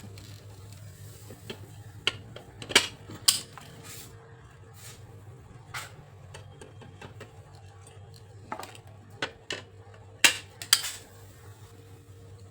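Sharp metallic clinks and knocks of tools and metal parts being handled, scattered irregularly, with the loudest near the start and again near the end, over a steady low hum.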